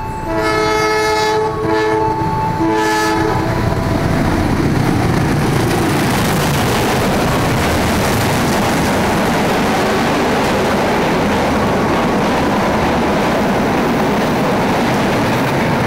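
A train horn sounds two blasts, the first about a second and a half long and the second shorter. Then two passenger trains run through the station at speed on both tracks, a loud, steady rush of wheels on rail.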